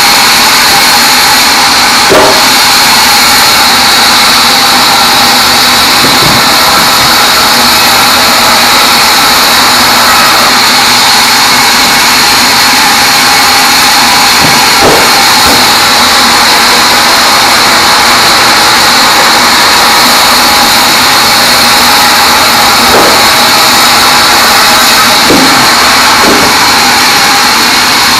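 Large band sawmill cutting through a teak log: a loud, steady high whine and hiss of the blade in the wood, with a few short knocks along the way.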